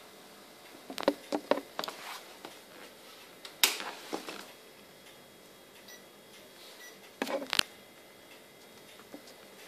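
A few sharp clicks and knocks, scattered and spread out, from a hand working the switches of a Sony XV-T33F video sketch titler to turn it on. The loudest click comes about three and a half seconds in, and a faint steady high whine holds after it.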